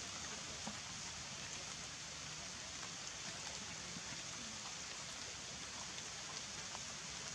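Steady, faint outdoor background hiss, with a few light ticks scattered through it.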